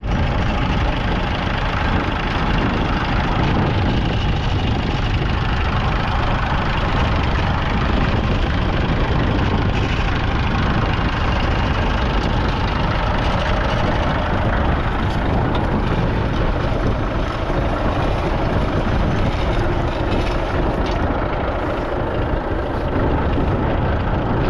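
The three-cylinder 2.5-litre diesel engine of a 1962 Massey Ferguson 35X tractor, running steadily.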